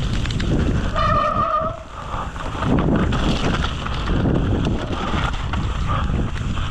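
Wind rushing over the microphone of a mountain bike descending a trail at speed, with rattling and tyre noise throughout. A brief steady squeal sounds about a second in.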